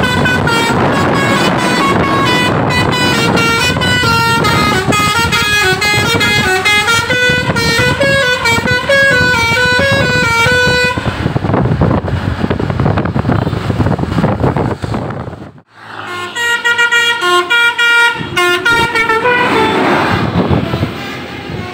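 Telolet horns on tour buses playing quick multi-note tunes over engine noise. The tunes stop about eleven seconds in, leaving only engine and road noise, then start again for a few seconds after a brief break.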